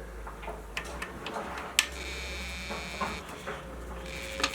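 Small metallic clicks and taps as a disc brake caliper with new pads is handled and seated back over the brake rotor. There is one sharper click a little under two seconds in and another near the end.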